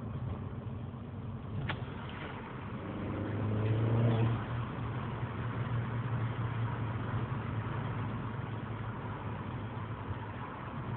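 Car engine and road noise heard inside the cabin while driving. A short click comes a little under two seconds in. The engine note then rises as the car accelerates, louder about four seconds in, and drops back to a steady cruising drone.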